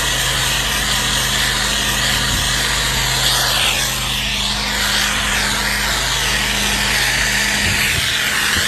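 Pressure-washing rig's engine running steadily while soap pre-treatment is sprayed, the spray's hiss rising and falling in pitch as the wand sweeps back and forth.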